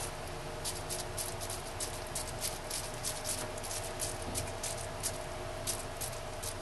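Plastic bubble wrap crinkling in short, irregular clicks, a few a second, as gloved fingers press it down onto soap in a silicone mold, over a faint steady hum.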